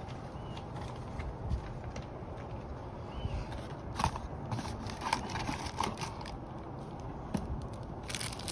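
Light clicks and rustling of a box's cardboard and plastic contents being handled, over a steady low hum, with a short burst of rustling near the end.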